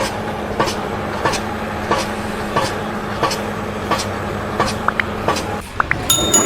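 A steady mechanical rumble with a sharp click repeating evenly about every two-thirds of a second. A few short rising chirps come near the end.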